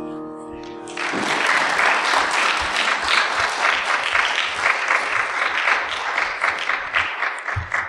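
A sustained grand piano chord dies away over the first second, then a church congregation applauds for about seven seconds, the clapping fading out near the end.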